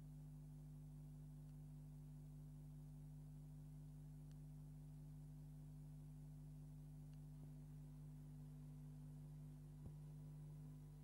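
Near silence with a steady low hum and one faint click near the end.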